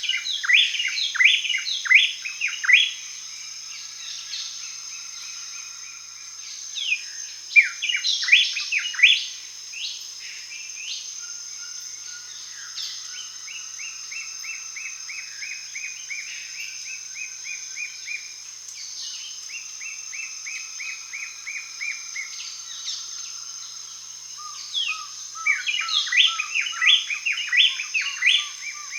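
Parrots chirping: bursts of quick, sharp calls near the start, about eight seconds in and again near the end, with runs of evenly repeated notes slowly falling in pitch between the bursts. A steady high-pitched hum runs underneath.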